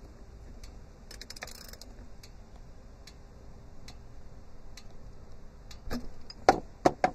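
A socket ratchet clicking in light, fairly regular ticks as it turns the 19 mm steel drain plug out of the tractor's oil pan. Near the end come a few much louder sharp metal clinks as the socket comes loose and drops.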